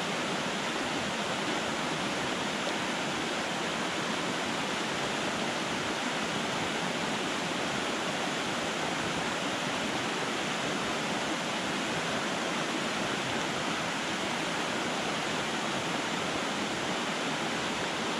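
Mountain creek rushing over rocks and a small cascade: a steady, unbroken hiss of flowing water.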